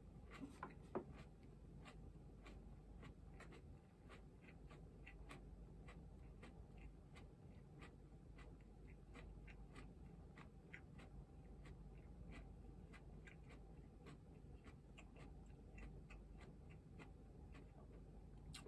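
Faint, irregular crisp clicks, several a second, of someone eating a crunchy shredded-cabbage salad with chopsticks, with one sharper click about a second in.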